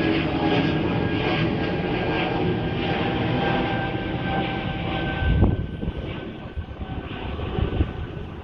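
An engine running steadily, a low rumble with a faint high whine over it. A thump comes about five seconds in, and the engine then sounds quieter.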